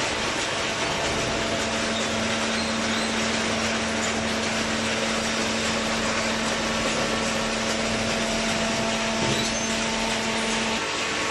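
Hydraulic cardboard baler running: a steady mechanical noise from its electric motor and hydraulic pump. A steady hum tone joins about a second in and stops near the end, as the ram presses.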